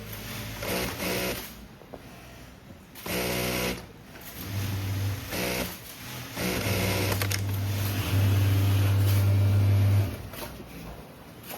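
Industrial sewing machines stitching denim in short runs that start and stop. The longest and loudest run comes in the second half and cuts off suddenly near the end.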